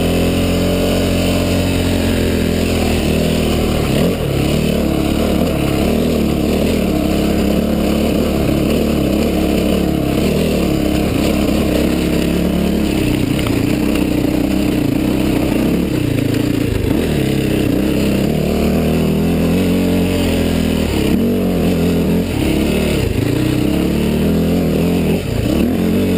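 Yamaha WR426F dirt bike's single-cylinder four-stroke engine running under load while climbing a rocky trail, its pitch rising and falling with the throttle.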